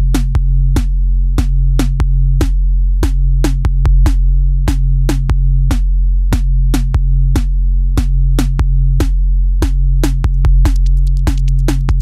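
Electronic background music: a drum-machine beat over a steady low bass, with a quick run of hi-hat-like ticks near the end.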